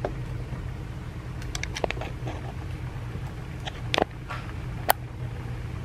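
Light clicks and knocks of kitchen items being handled, a few scattered through, the sharpest about four seconds in and another just before five seconds, over a steady low hum.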